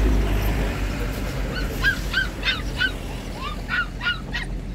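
Black puppy squealing: about nine short, high-pitched squeaks in quick succession, starting about a second and a half in, over a low rumble.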